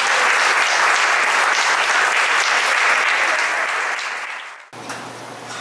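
Audience applauding, dying away and cut off abruptly near the end.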